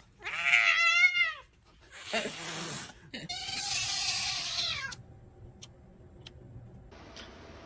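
A cat meows: one loud, drawn-out meow about a second long, bending in pitch. It is followed over the next few seconds by hoarser, hissy cat cries.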